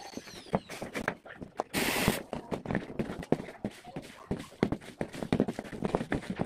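A cordless battery-powered pruning saw's motor whine glides down and stops at the very start. Then come scattered clicks, knocks and rustling from the cut branches and leaves being handled, with a short burst of rustling noise about two seconds in.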